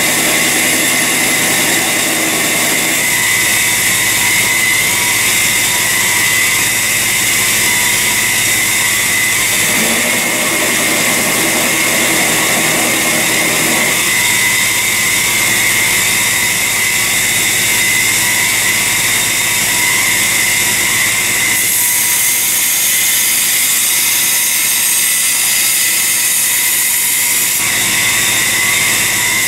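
Electric grinder running steadily and grinding the steel of a knife blade made from a Heller farrier rasp, the blade throwing sparks; the sound shifts a few times as the blade is pressed on and eased off.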